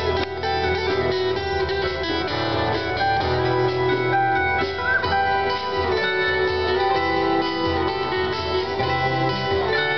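Instrumental music led by guitar over a steady bass line, with no singing.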